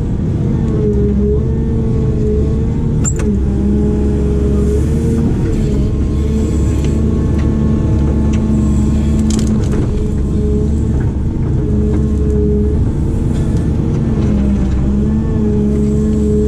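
Heavy diesel construction machine working, its engine and hydraulics running steadily under load with a slightly wavering pitch. A couple of sharp knocks or cracks, about three seconds in and again near the middle.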